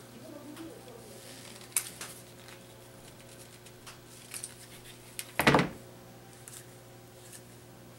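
Handling noises at a workbench: a light click, a few small ticks, then a single knock about five seconds in, over a steady low hum.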